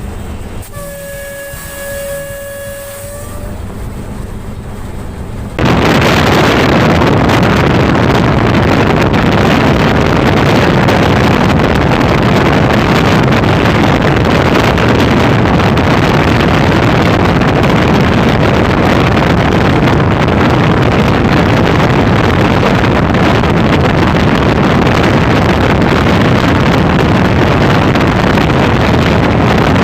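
A diesel locomotive's horn sounds one steady note for about two and a half seconds near the start. About five and a half seconds in, a loud, steady rush of wind and wheel noise sets in suddenly, from an express train running at high speed.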